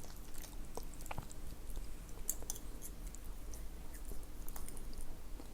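A person chewing food close to the microphone, with small scattered mouth clicks and smacks.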